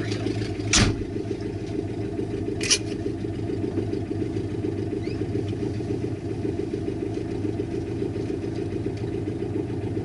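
Car engine with no exhaust system idling, heard from inside the cabin as a steady low drone. A short thump comes about a second in and a brief click near three seconds.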